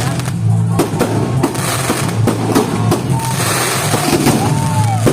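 Fireworks going off in rapid, repeated bangs and crackles over loud music with a heavy bass beat. A brief whistle is heard near the end.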